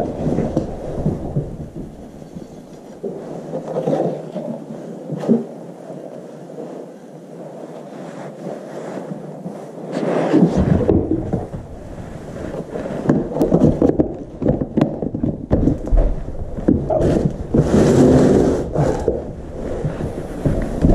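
Cat litter being scooped and sifted in a litter box: gritty scraping and rustling, with sleeve fabric rubbing against the body-worn camera's microphone. About ten seconds in, a low rumbling handling noise joins and carries on, with louder scuffs near the end.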